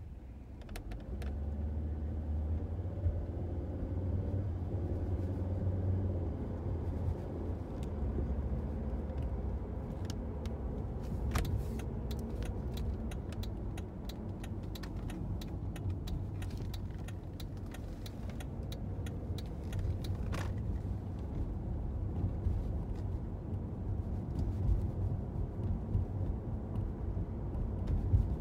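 Car driving, heard from inside the cabin: a low engine and road rumble that swells about a second in as the foot goes onto the accelerator, then holds steady. Light clicking and jingling comes through the middle.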